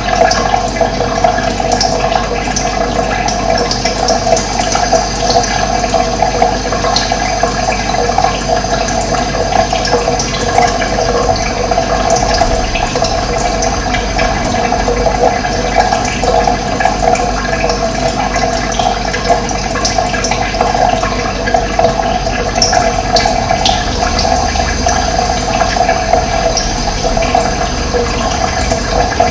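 Running water rushing steadily, with a few faint, brief bird chirps above it.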